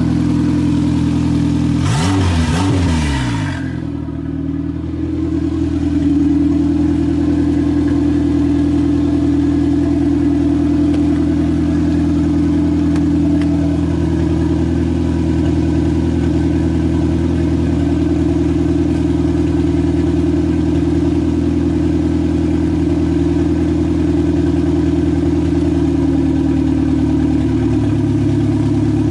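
Turbocharged 4E-FTE four-cylinder in a 1994 Toyota Tercel, idling steadily through a straight downpipe with no muffler. About two seconds in there is a quick rev whose pitch falls back to idle.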